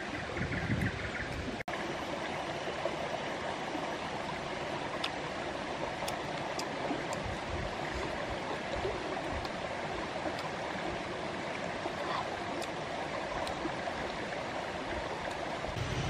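Shallow rocky stream flowing: a steady rushing of water over stones, broken by a very short gap about two seconds in.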